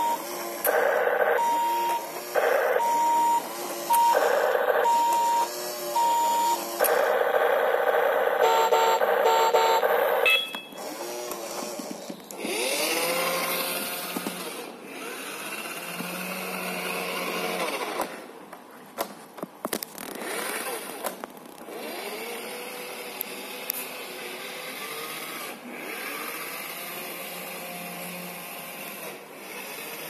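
Remote-control toy bus: its sound unit beeps steadily, one tone on and off, then gives a denser burst of electronic tones. After about ten seconds the whine of its small electric drive motor and gears takes over, its pitch rising and falling as the bus drives about.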